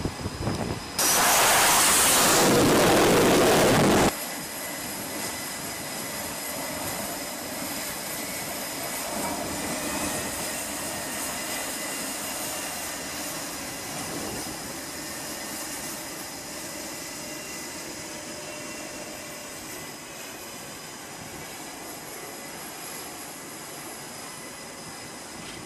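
F/A-18 jet engines on a carrier flight deck: a loud blast of jet noise that starts suddenly about a second in and cuts off abruptly after about three seconds, then a steady lower jet noise with a faint high whine.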